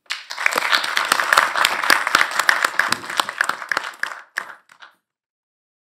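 Applause: a dense run of hand claps that thins to a few scattered claps and stops about five seconds in.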